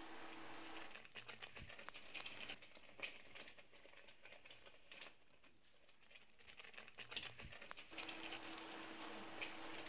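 Thick tomato sauce simmering in a pan, with faint irregular pops and clicks from bursting bubbles, over a steady low hum that drops out after about a second and returns near the end.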